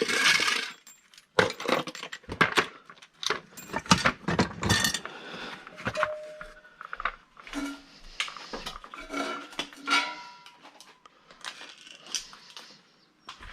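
Loose scrap metal, hard drives among it, being picked up, handled and dropped: an irregular string of metallic clanks and clinks, busiest in the first few seconds and thinning out after.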